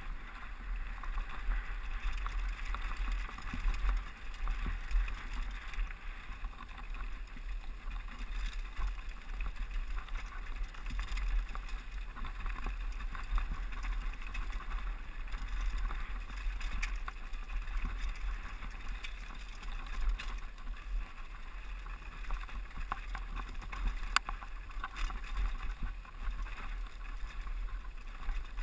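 Mountain bike rolling fast down a rocky dirt trail, recorded on a GoPro: a steady rush of tyres on loose gravel with wind buffeting the microphone in a low rumble, and scattered sharp clicks and knocks as the bike rattles over rocks.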